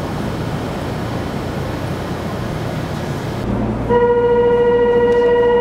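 Busy station platform ambience, then a cut into the monorail car. Just before four seconds in, a loud steady electronic buzzer tone starts inside the car and holds, typical of a Japanese train's departure warning buzzer.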